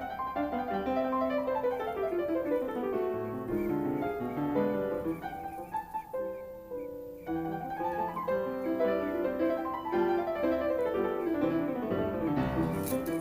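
Background piano music, flowing runs of notes in a classical style, with a short pause about halfway through.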